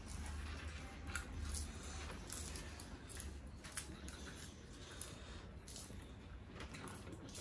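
Popcorn rustling and crunching in faint, irregular crackles as handfuls are scooped from plates and chewed.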